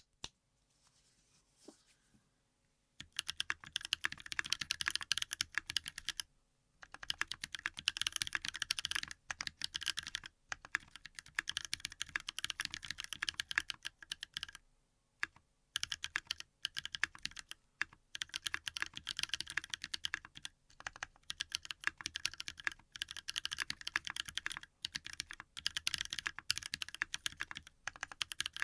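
Fast typing on an LSJ Ares mechanical keyboard with lubed original Holy Panda tactile switches, a brass plate and PBT keycaps: dense runs of keystrokes broken by short pauses every few seconds, starting about three seconds in.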